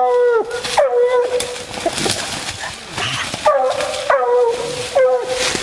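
Bluetick coonhound barking treed at a raccoon: loud, drawn-out barks that drop in pitch and hold, two near the start, a pause, then three more in quick succession.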